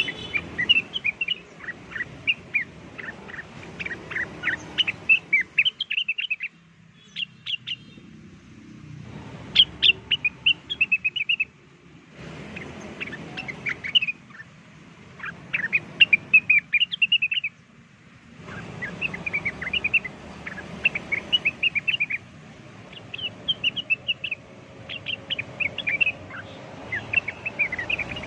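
Cucak wilis (blue-winged leafbird) singing: rapid strings of high chirps and short whistled notes in quick phrases. The song breaks off abruptly a few times and starts again, as in a looped lure recording.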